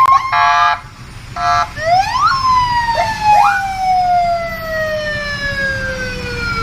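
Police-car siren: two short flat horn-like blasts, then quick upward sweeps and a long wail that slides slowly down in pitch over the last four seconds.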